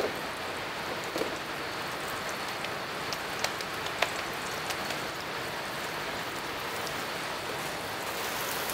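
A flour-dusted beef steak frying in olive oil in a pan: a steady sizzle, with a few light clicks about one, three and a half and four seconds in.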